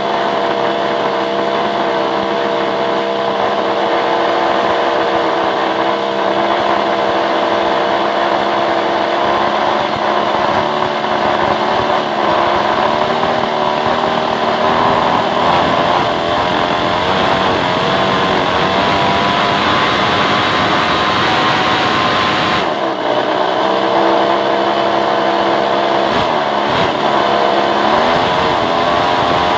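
Two-stroke chainsaw engine running on a test stand, steady at first, then its speed wavering up and down through the second half, with a brief dip about two-thirds of the way in.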